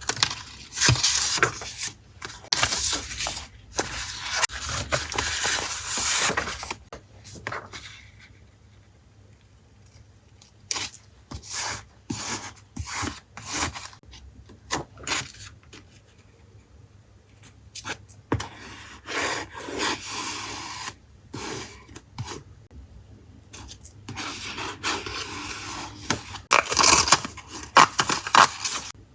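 Paper being handled and rubbed on a journal page: dense scraping and rubbing at the start and again near the end, with quieter scattered taps and rustles in between.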